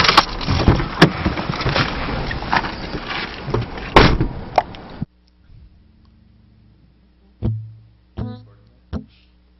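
Noisy sound inside a car cabin, with clicks and knocks of handling and a sharp clunk about four seconds in. It cuts off abruptly to quiet, where single acoustic guitar notes are plucked about four times, each ringing out briefly.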